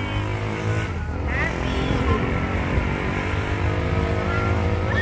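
Car engine and road noise heard from inside the cabin while riding, a steady low rumble. A brief high voice sounds about a second in.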